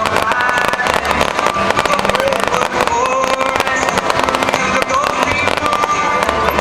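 Fireworks display at full barrage: dense, continuous crackling and popping from many shells bursting at once.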